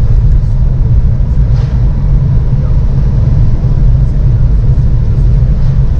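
Car driving on a wet highway in heavy rain, heard from inside the cabin: a loud, steady low rumble of road and tyre noise with rain hiss over it.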